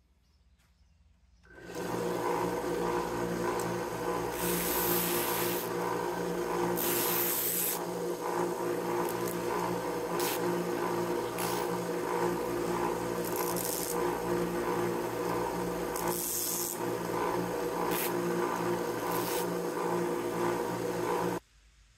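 Small vertical belt sander running with a steady motor hum while a thin wooden strip is pressed against the moving belt again and again, giving short bursts of wood being ground down.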